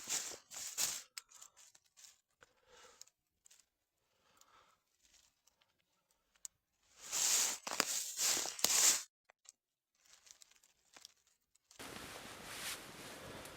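Short bursts of rustling and crunching, two near the start and a louder cluster about seven to nine seconds in, with silent gaps between. A steady hiss begins near the end.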